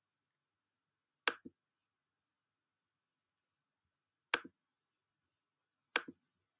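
Computer mouse button clicked three times, each click a quick press and release. The clicks are about three seconds apart, then a second and a half apart.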